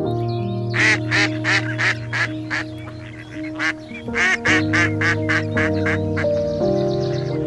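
Ducks quacking in quick repeated calls, pausing briefly about three seconds in, over background music with held chords.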